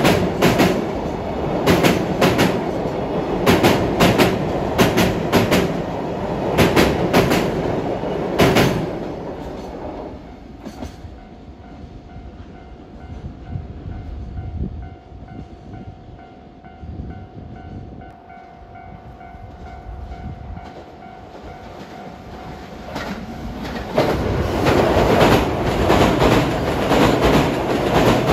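Freight train of container wagons crossing a steel railway bridge, its wheels clicking over rail joints in pairs, until the last wagon passes about nine seconds in. A level-crossing bell then keeps ringing on its own. About 24 s in, a JR West 227-series electric train comes through with loud rail noise.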